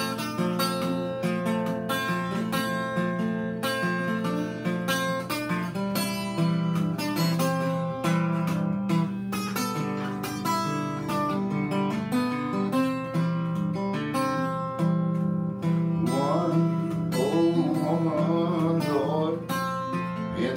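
Acoustic guitar playing a solo instrumental break in a country blues tune, with clear picked notes over a steady, repeating bass line. A voice joins in near the end.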